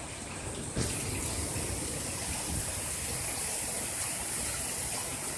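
Heavy downpour of rain, a steady rushing hiss that gets suddenly louder about a second in.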